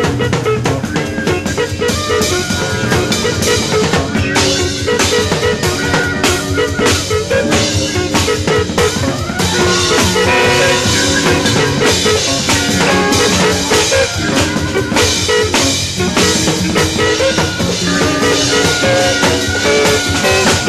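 Live avant-garde jazz ensemble playing, with a busy trap-drum kit (snare, rimshots and bass drum) driving dense, fast strokes under several held and moving pitched instrument lines.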